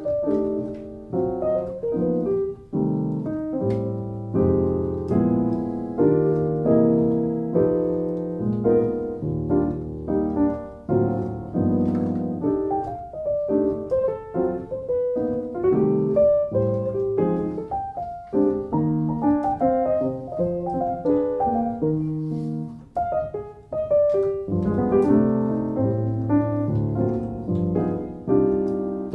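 Sampled Bösendorfer upright piano (VSL Synchron virtual instrument, dry preset without added effects) playing a slow, continuous passage of sustained chords and melody.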